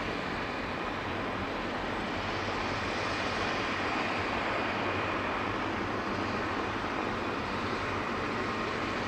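Aerospatiale AS350B Ecureuil helicopter running on the ground with its main rotor turning: the steady whine of its turboshaft engine over the rush of the rotor, swelling slightly midway.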